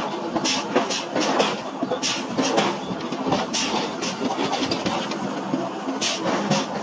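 Heavy forging machinery running while a punch is worked through a red-hot iron block: a steady mechanical din with short hissing bursts at uneven intervals, about every half second to a second.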